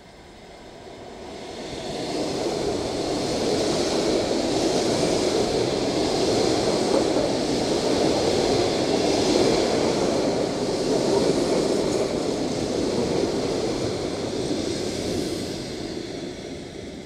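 ET2M electric multiple unit running past close by: the steady rush of wheels on rails builds over about three seconds, holds while the carriages go by, and fades over the last few seconds as the rear cab passes.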